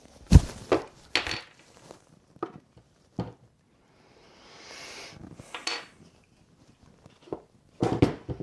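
Metal clanks and clicks of a hand battery-cable crimper and cable terminal being handled. There is a loud knock about a third of a second in, a few lighter clicks after it, a brief scraping rustle around the middle, and a quick run of clanks near the end.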